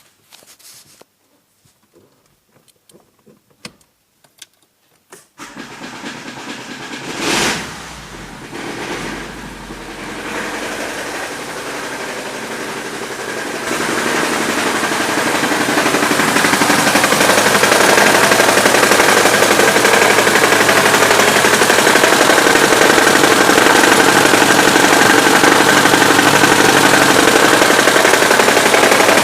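Daewoo Sens 1.3-litre four-cylinder engine running with an unidentified knock under the bonnet. After a few near-silent seconds with faint clicks, it comes in about five seconds in with a brief rev. It then grows louder and settles into a steady running noise with a rapid repeated knocking.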